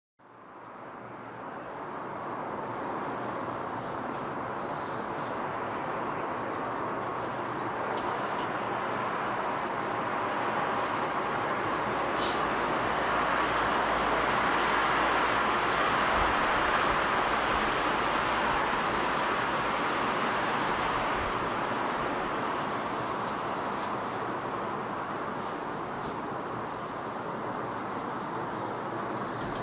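Small songbirds calling: short, high chirps that fall in pitch, repeated every few seconds. Beneath them runs a steady rushing background noise that swells a little midway.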